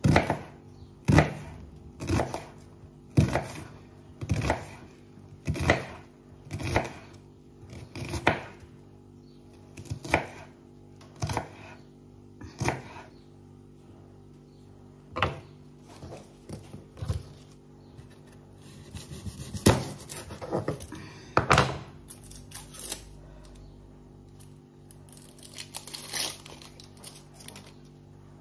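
Chef's knife chopping an onion on a wooden cutting board: sharp knocks of the blade striking the board, about one a second at first, then slower and more irregular.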